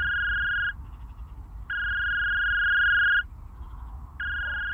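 Telephone ringback tone, a call ringing out at the caller's end: a steady electronic tone about a second and a half long, repeating every two and a half seconds. One tone ends under a second in, a second follows, and a third starts near the end.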